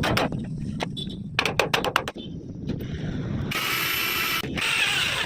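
Workshop sounds over a steady low rumble: a quick run of sharp mechanical clicks, then a power tool starting up with a high whine about three and a half seconds in, briefly dipping and carrying on.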